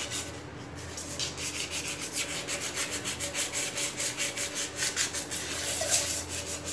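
Paper scrub rubbed back and forth over the copper base of a steel milk pan, a fast even run of scratchy strokes, several a second, scouring off the blackened tarnish.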